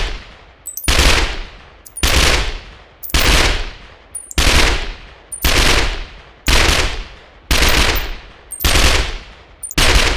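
MP5 submachine gun firing short full-auto bursts, a new burst about every second, nine or so in all, each trailing off in an echo.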